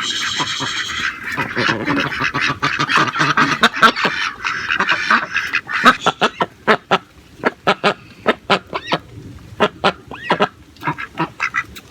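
Ducks quacking loudly and honking as they are caught and handled for eye treatment. A run of sharp knocks and taps follows in the second half.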